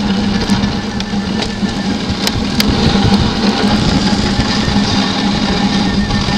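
A dog sled running over snow behind a team of huskies: the runners give a loud, steady rumble and hiss, with a constant low hum underneath and two sharp clicks a little after two seconds in.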